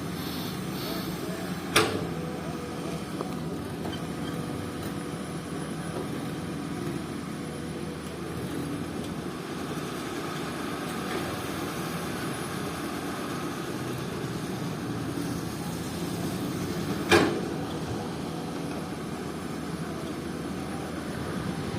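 Komatsu PC200 hydraulic excavator's diesel engine running steadily while it works, with two sharp knocks, one near the start and one near the end.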